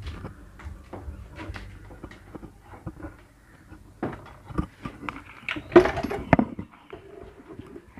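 Metal tools and engine parts clinking and knocking as they are handled, with a louder clatter about six seconds in.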